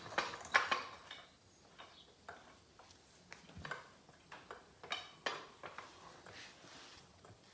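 Irregular light metallic clinks and knocks from tools and metal parts being handled, spaced about a second apart.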